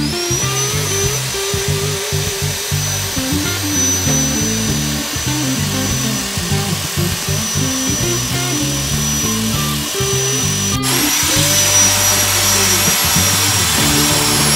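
Angle grinder with a wire wheel spinning up with a high whine and scrubbing rust off a steel drum brake shoe, a harsh steady hiss. About eleven seconds in it cuts off suddenly and a grinder spins up again. Background music with guitar and bass runs underneath.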